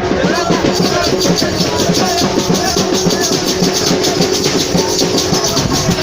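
Music driven by drums and shakers in a fast, steady rhythm, with a held tone underneath.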